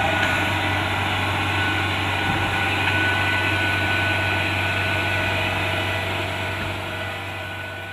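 Kubota DC-70 Plus rice combine harvester running steadily, its diesel engine droning under the whir of the cutting and threshing machinery. The sound fades out over the last two seconds.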